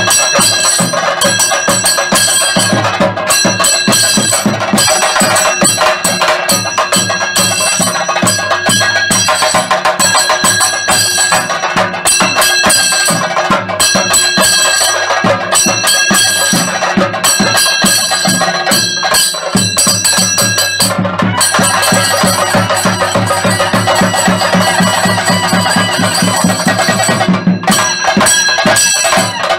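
Chenda drums beaten in a fast, dense, continuous rhythm, with a steady metallic ringing over the drumming.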